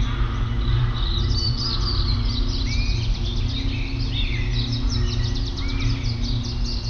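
A chorus of many songbirds chirping and whistling at once, with rapid overlapping calls and short rising and falling notes. A steady low drone sits underneath.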